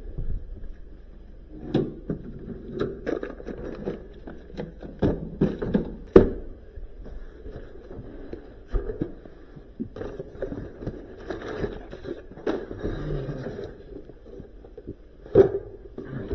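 Irregular knocks, clicks and scraping, as of objects being handled, with a sharp knock about six seconds in and another near the end.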